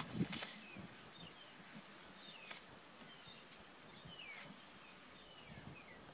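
Small birds calling in the bush: a rapid series of very high short chirps with falling whistled notes among them. A few soft splashes and thuds come from elephants shifting in a mud wallow, near the start and around the middle.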